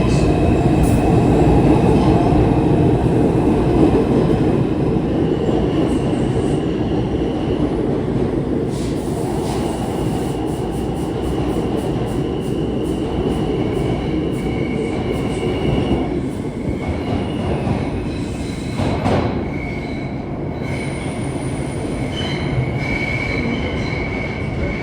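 New York City subway train running with a steady low rumble, its steel wheels squealing in thin high tones, with a quick run of clicks over the rail joints partway through and the rumble easing in the second half.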